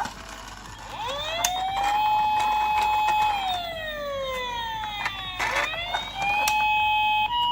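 Toy ambulance's electronic siren wailing: the pitch rises, holds, falls slowly, then rises and holds again. Near the end it switches to a two-note hi-lo tone. A few sharp clicks sound in between.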